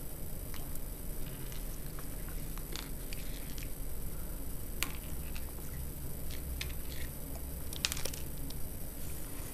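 A baby's mouth sounds while chewing a Cheerio: scattered soft smacks and clicks, with a few quick clicks close together about eight seconds in, over a steady low hum.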